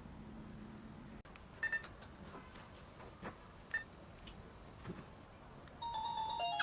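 Wireless caregiver pager alarm: a quick double beep about a second and a half in, a few light clicks and another short beep, then near the end the receiver starts playing its electronic chime tune.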